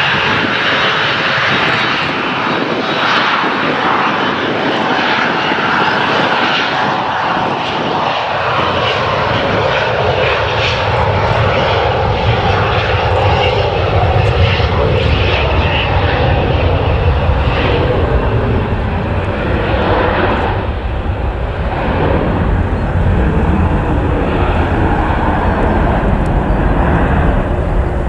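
Twin turbofans of an Airnorth Embraer E-Jet at take-off power during its take-off roll. A high whine is prominent early on, and a low rumble builds from about a third of the way in and holds as the jet accelerates and rotates near the end.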